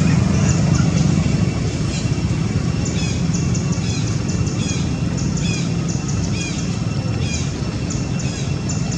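Outdoor ambience: a steady low rumble of distant traffic under small birds chirping, short high notes repeating a few times a second.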